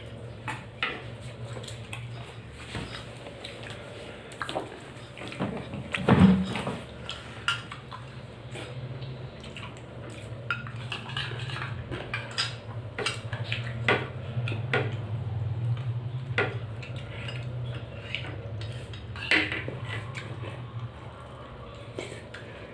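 Eating by hand from a plate: fingers mashing and scooping rice, with scattered light taps and clinks against the plate and small steel bowls and one louder knock about six seconds in, over a steady low hum.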